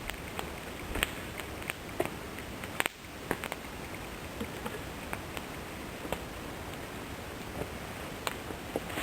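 Campfire of damp wood crackling, with sharp, irregular pops over a steady hiss: the damp wood is spitting and sizzling as it burns.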